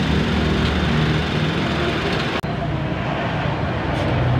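Honda CR-V's four-cylinder engine idling steadily in park, just after the transmission has been run through all the gears for a fluid-level check.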